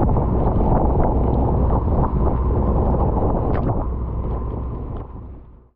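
Strong wind buffeting the microphone over the rush of rough sea around a small open timber sailing boat, with occasional splashes of spray; the sound fades out near the end.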